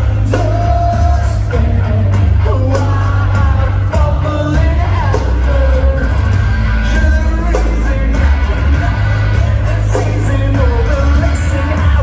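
Live band playing loud: a singer holding sung notes over electric guitars, bass and drums, with a heavy, boomy low end as heard from the crowd.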